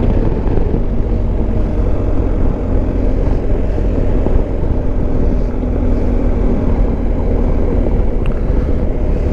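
Dual-sport motorcycle engine running steadily at cruising speed.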